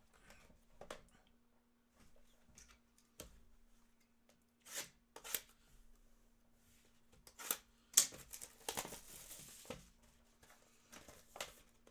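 Plastic shrink wrap being torn off a trading card hobby box and crinkled, in a few short rips about five and eight seconds in, with light taps and handling of the cardboard box between them.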